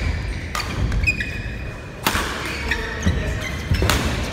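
Badminton rackets striking a shuttlecock during a doubles rally: three sharp hits, about a second and a half apart, ringing in a large sports hall. Short squeaks of court shoes on the mat come in between.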